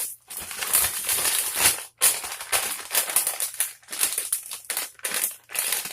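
Packaging crinkling and rustling in irregular handfuls as a squishy toy is pushed back inside it.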